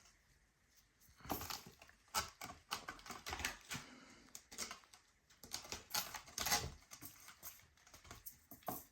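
A cat clawing and scrabbling at a scratching post: irregular bursts of rasping scratches and clicks, starting about a second in.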